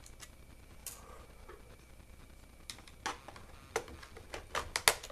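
Sharp plastic clicks and light knocks as a screwdriver prises off a laptop's plastic RAM compartment cover: one faint click about a second in, then a quick run of clicks over the last two seconds, the loudest near the end.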